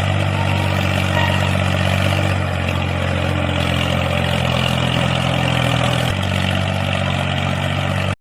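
Engine idling steadily with a low, even beat, shifting slightly in tone about six seconds in.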